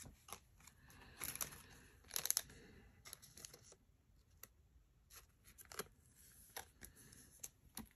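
A foil trading-card pack wrapper torn open in two short rips, about one and two seconds in, followed by faint clicks and rustles of the cards being handled.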